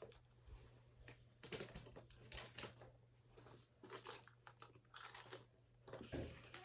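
Faint, irregular crinkling and clicking of plastic as a set of press-on nails is rummaged through.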